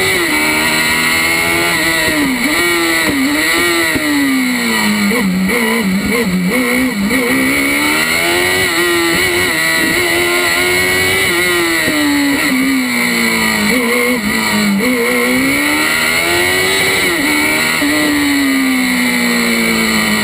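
Kawasaki motorcycle engine of a Fiat 500 race car, heard from inside the cockpit, revving hard and repeatedly rising and falling in pitch, with sharp drops as the driver shifts or lifts for bends. Near the end the revs fall in one long, smooth glide.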